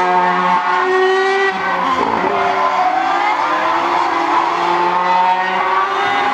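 Mercedes Formula 1 car's 2.4-litre V8 engine running at high revs. Its pitch holds steady, breaks about two seconds in, then climbs steadily as the car accelerates away.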